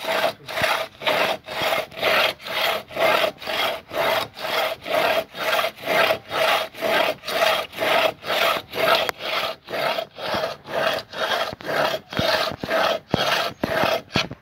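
A long two-man hand saw cutting through a log, steady back-and-forth strokes about two a second, each stroke a rasp of the teeth through the wood with a faint ringing note from the blade.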